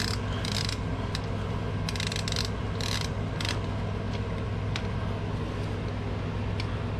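Hand ratchet with a Torx socket clicking in short runs while fasteners are worked loose, the runs in the first few seconds giving way to a few scattered single clicks. A steady low hum lies underneath.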